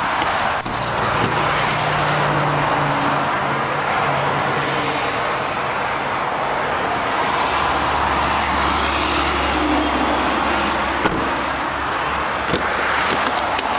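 Steady highway traffic noise, tyre and engine sound blended into an even wash, with a low rumble that swells for a few seconds in the middle.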